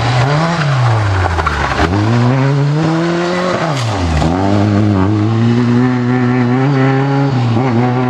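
Rally car engine under hard driving: the revs climb, drop sharply twice in quick succession about two and four seconds in, then hold high and fairly steady.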